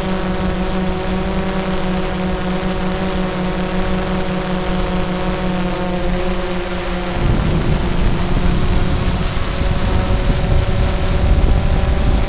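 DJI Phantom quadcopter's motors and propellers whining steadily, recorded by the GoPro mounted on the drone itself. About seven seconds in the pitch shifts and a louder low rumble joins.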